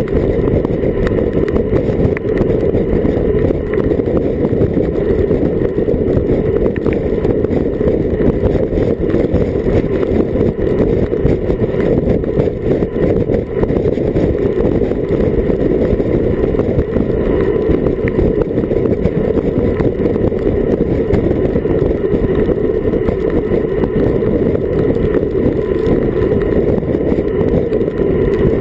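Wind rushing over an action camera's microphone on a fast bicycle descent at 30–45 km/h: a loud, steady low roar with no breaks.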